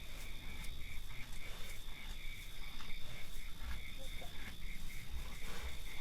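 Night chorus of insects and frogs: a steady high trill under a chirping that pulses about four times a second, with scattered soft clicks and a low rumble.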